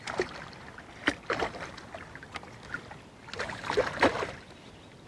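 Water splashing in irregular bursts, loudest a little over three seconds in: a hooked carp thrashing at the surface as it is being landed.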